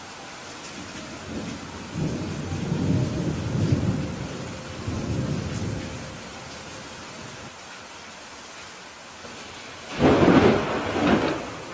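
Steady rain falling, with thunder: a low rolling rumble for a few seconds, then a louder, sharper thunderclap about ten seconds in.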